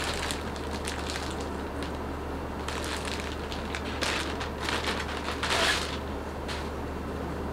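Clear plastic packaging crinkling and rustling in irregular bursts as it is handled and pulled from a cardboard box, with a longer, louder rustle about five and a half seconds in.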